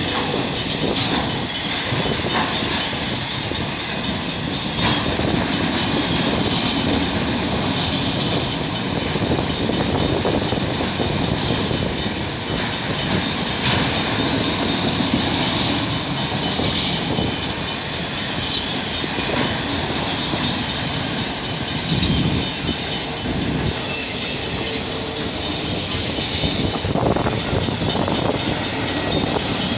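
CP freight train of autorack cars rolling past, steel wheels on the rails giving a steady rumble with clickety-clack over the rail joints.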